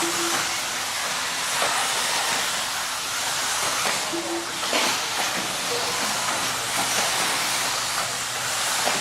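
A pack of 1/10-scale electric 4WD RC buggies racing on a dirt track: a steady, loud hiss of motors and tyres, with a few short knocks.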